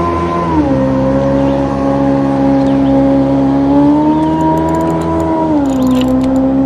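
Electric trolling motor running with a steady hum, its pitch stepping down about half a second in, rising again a few seconds later, then stepping down once more as the speed setting changes.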